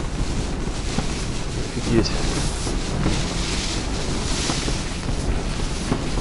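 Strong wind gusting against a fabric Lotos-style ice-fishing tent, heard from inside: a loud steady rush of wind buffeting the walls, with a few sharp knocks as the fabric is struck.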